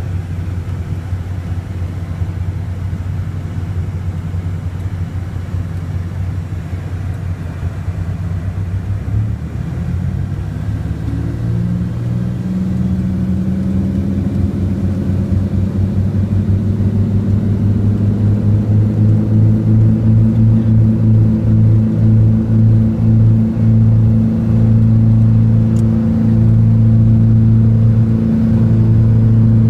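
A Cessna 421's twin engines, heard from inside the cockpit, run at low power and then spool up to takeoff power from about ten seconds in, climbing in pitch and growing louder. Once at full power the sound carries a pulsing beat.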